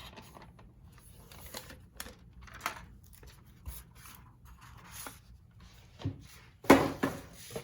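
Paper and wrapping rustling and crinkling as notebooks are handled and unpacked, in short scattered bursts, with a louder rustle about seven seconds in.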